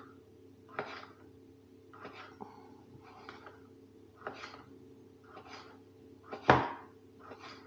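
Kitchen knife slicing a small sausage into thin strips, the blade knocking on the cutting surface about once a second, with one louder knock near the end.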